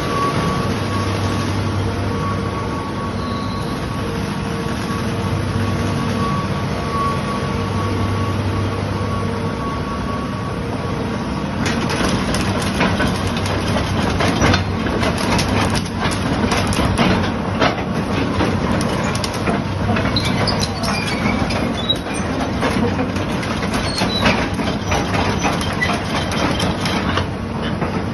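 Hitachi Zaxis 200 crawler excavator's diesel engine running steadily. From about twelve seconds in, a dense, irregular clatter of metal clicks and clanks sets in over the engine.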